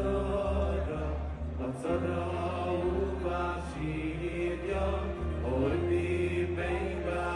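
Live Jewish song: a male lead singer on a microphone over a band, with a bass line that steps to a new note about once a second and a crowd of men singing along.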